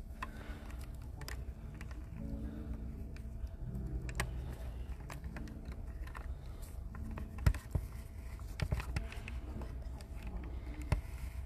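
Room tone in a church: a steady low hum with scattered small clicks and knocks, two of them sharper, one about halfway through and one near the end.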